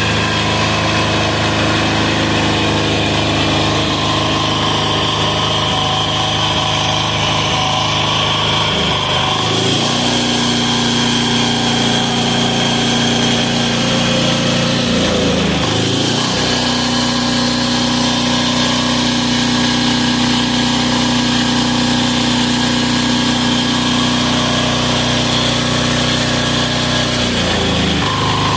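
Single-cylinder air-cooled 186FA diesel engine running on filtered waste vegetable oil. Its speed rises about a third of the way in, dips briefly and recovers around the middle, and drops back near the end.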